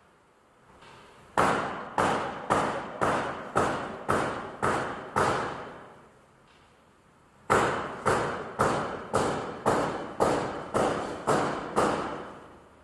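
Repeated heavy blows, like hammer strikes, about two a second, in two runs of eight and nine with a pause between; each strike rings briefly and fades.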